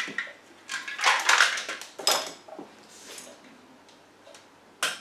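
Clattering and knocks of kitchen things being handled on a Monsieur Cuisine Plus food processor: a few short clatters in the first half, faint clicks after, and one sharp knock near the end.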